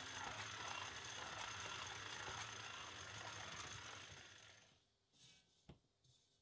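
Electric stand mixer running, churning bread dough in a stainless steel bowl: a steady motor hum with a thin high whine. It fades away about four and a half seconds in, and a single faint click follows.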